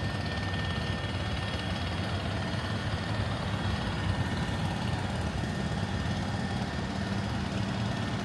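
Steady low engine rumble, like vehicles idling in street traffic, with a faint thin steady tone above it.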